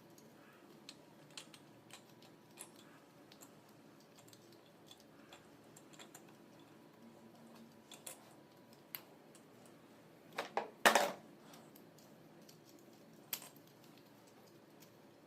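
Scattered light clicks and taps of tools and small parts being handled during an alternator repair. About ten seconds in comes a louder clatter of several quick knocks lasting under a second, then one more sharp click.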